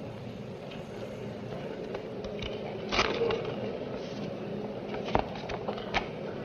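An awards envelope being opened at a microphone: paper crackling and tearing in a few sharp crackles, the loudest about three seconds in, against the steady hiss of an old broadcast recording.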